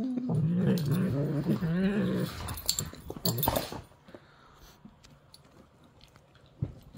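Yellow Labrador retrievers play-fighting. A dog growls in a wavering pitch for about two seconds, then come short clicks and a scuffling burst, and quieter scuffling near the end. The growl is play, not aggression.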